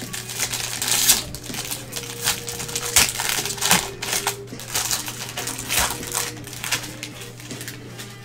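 Foil wrapper of a Bowman baseball card pack crinkling and crackling as gloved hands tear it open, a dense run of sharp crackles that thins out near the end.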